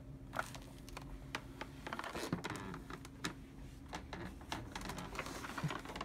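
Light, irregular clicks and taps of hands handling the plastic body of a Hoover Windtunnel Supreme upright vacuum, which is switched off, as it is tilted and turned around.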